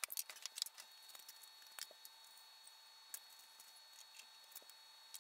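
Faint scattered clicks and taps of utensils against plates as food is plated at a kitchen counter, over a faint steady high-pitched whine.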